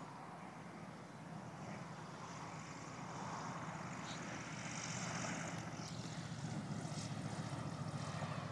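Cessna 210's single piston engine and propeller running with a steady drone, growing louder as the plane approaches.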